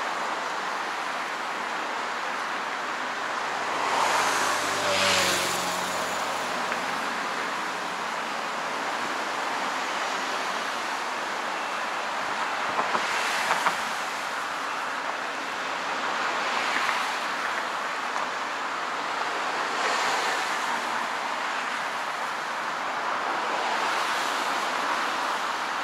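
Steady road traffic noise, with motor vehicles passing one after another every few seconds. One passes close about five seconds in, its engine note plainly heard.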